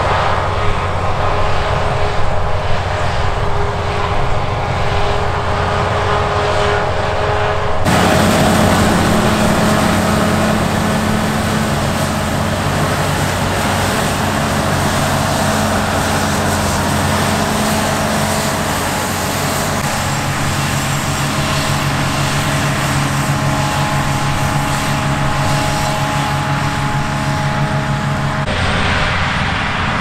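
Claas Lexion 8900 combine harvester running under load while harvesting grain: a steady drone of engine and threshing machinery with several steady engine tones. The sound changes abruptly about a quarter of the way through and again near the end.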